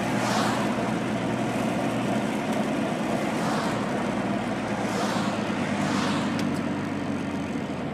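Steady engine and road noise inside the cabin of a moving car, a low hum with a few brief hissing swells.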